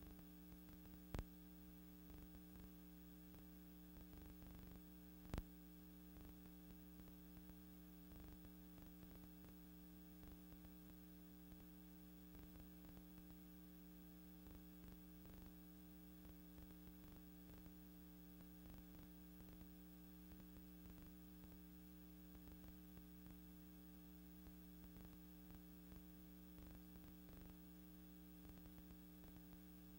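Near silence: a faint, steady electrical hum, broken by two sharp clicks, about a second in and about five seconds in.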